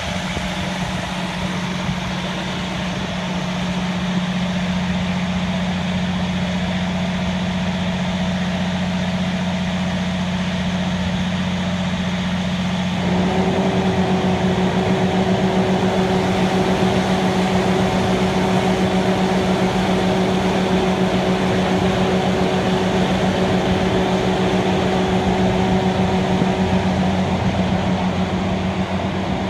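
Fire engine's motor running steadily with a constant hum. About thirteen seconds in it gets louder and a higher steady whine joins in.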